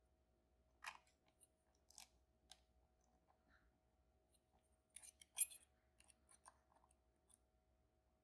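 Faint, scattered clicks and ticks of a lock pick working the pins of a Banham M2002 lock, with a short cluster of louder clicks about five seconds in.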